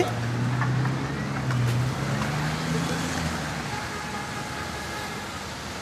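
Car driving on a wet street in the rain: its engine note rises over the first couple of seconds and fades, over a steady hiss of rain and wet tyres.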